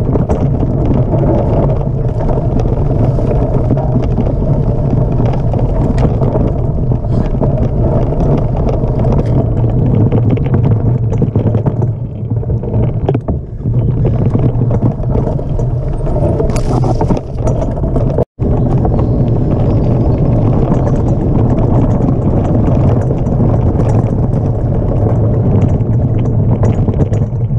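Loud rumbling of a mountain bike riding fast over a dirt forest trail, tyre roar and rattling mixed with wind buffeting the camera's microphone. The sound cuts out for an instant about two-thirds of the way through.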